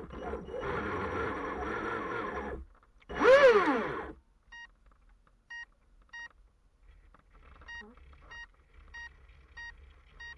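An RC boat's electric motor runs, stops, then whines up and back down once, after which the boat's electronics give a string of short beeps, roughly one every half second to second. The boat has filled with water and is dying.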